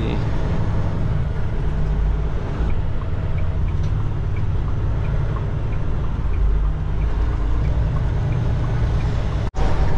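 Steady low engine and road drone inside a moving semi-truck's cab, with faint ticking about twice a second through the middle.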